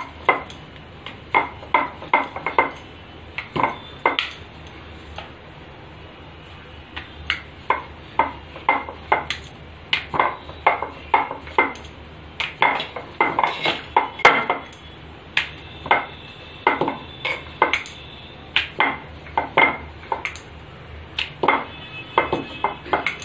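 Wooden rolling pin clacking against a stone rolling board as thepla dough is rolled out, in quick runs of sharp clacks a few a second with a short ringing clink, as the bangles on the rolling wrist knock together. The clacks pause for a couple of seconds about a quarter of the way in, then resume.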